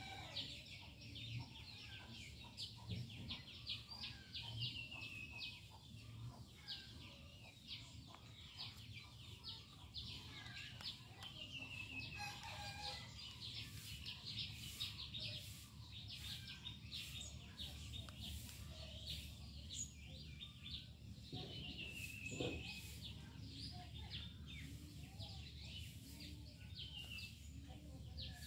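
Birds chirping: many rapid short chirps with a few falling calls now and then, over a faint low hum.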